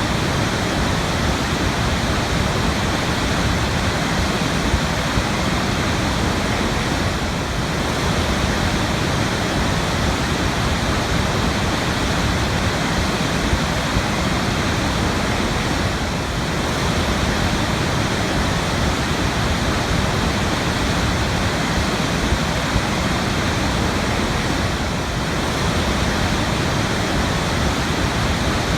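Waterfall: a steady, full rush of falling water that dips slightly about every nine seconds.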